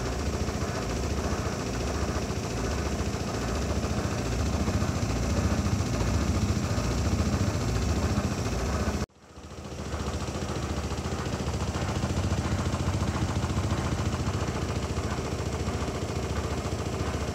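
Camec 3 kg compact top-loading washing machine running, a steady motor hum with a fast low churning pulse, at what is about as loud as it gets. The sound cuts out for an instant about nine seconds in and starts again.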